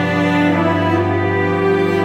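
A cello ensemble of seven players bowing a slow, sustained chord in several parts.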